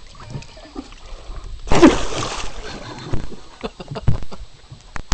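A batfish splashing into the sea beside the boat: one loud splash of water about two seconds in, lasting under a second.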